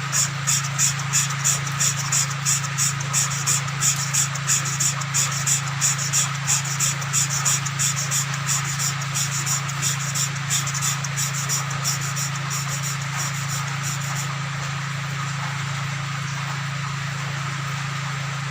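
Hand valve lapping on a Sogo 13 hp engine: the valve is worked back and forth on its seat with fine lapping compound, giving a gritty rasping stroke about twice a second. The strokes stop about fourteen seconds in.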